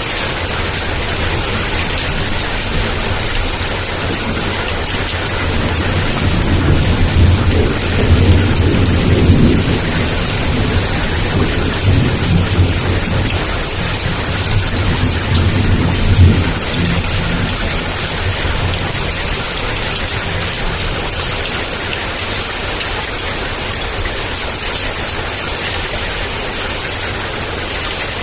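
Heavy rain falling steadily, with a roll of thunder rumbling low from about six seconds in that swells twice and fades out by about seventeen seconds.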